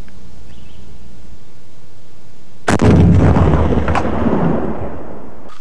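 M72 66 mm light anti-tank rocket launcher fired from the shoulder: one sudden loud blast about two and a half seconds in, its rumble dying away over about two seconds.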